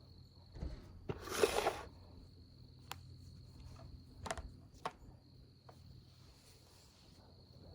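A steady, high, thin trill of calling insects runs through. Over it, laundry is taken down: a loud rustle of fabric about a second in, then a few sharp clicks.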